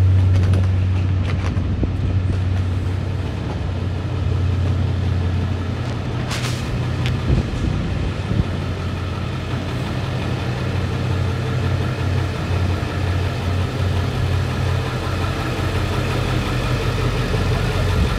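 A motor vehicle's engine running steadily at idle, a low even hum with a constant drone above it. A short hiss cuts in about six seconds in.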